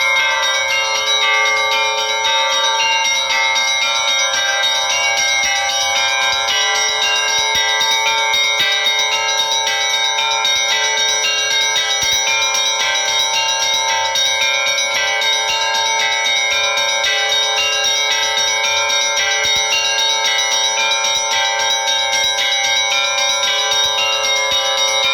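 Russian Orthodox church bells rung by hand in a continuous peal: many bells struck in quick succession over the steady ringing of the larger bells, with no pause.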